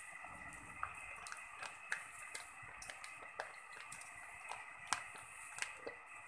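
Faint, irregular popping and ticking of adobo sauce simmering in a wok, with coconut milk being poured in from a pack.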